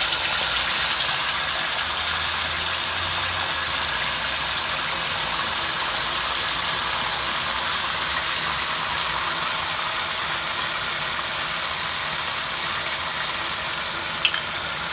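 Sweet and sour sauce sizzling and bubbling in a hot wok of oil with ginger strips, a steady hiss. A single sharp click near the end.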